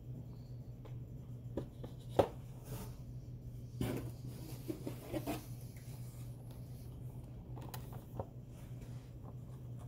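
Cardboard Funko Pop boxes being handled and set down on a table: light taps and cardboard rubbing, with one sharper knock about two seconds in and a cluster of rustles and taps around the middle.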